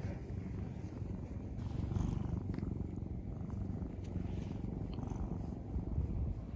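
Tabby-and-white domestic cat purring steadily up close, a low, rapid rumble, with a few faint rustles as it is stroked.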